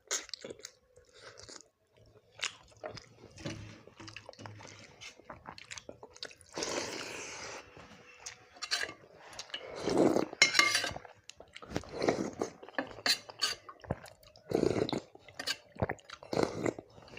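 Close-miked eating: chewing and crunching on fried fish, with wet squishing and slurping from mouthfuls of water-soaked rice. The sounds come in irregular bursts, loudest about ten seconds in.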